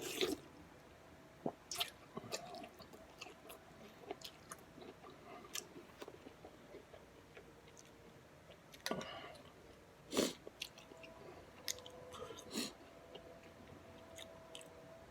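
A person chewing pho up close to the microphone: soft wet mouth clicks, with a few louder bursts near the start, around nine and ten seconds in, and at about twelve and a half seconds.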